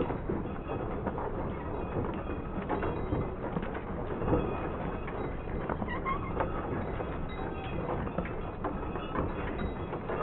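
Covered wagons rolling along a paved road: a steady rumble of wooden wheels with a constant clatter of small rattles and clicks.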